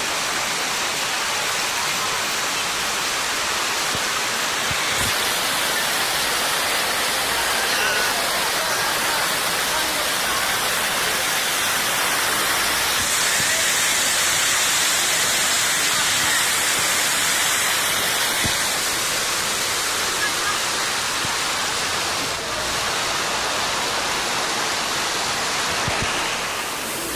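River rapids: fast water rushing and churning over rocks in a steady, loud roar.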